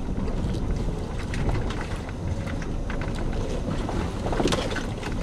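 Four-wheel drive crawling slowly along a rough dirt track, heard from inside the cab: a steady low rumble of engine and tyres with a few faint knocks from the body and suspension, the clearest about four and a half seconds in.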